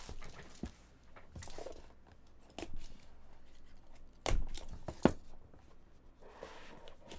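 Shrink-wrap plastic on a trading card box being slit with a utility knife and torn away, scratchy crinkling and tearing, with two sharp knocks a little under a second apart past the middle as the cardboard box is handled.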